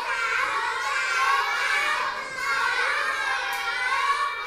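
Many young children's voices talking and calling out at once, a dense overlapping classroom chatter with no single voice standing out.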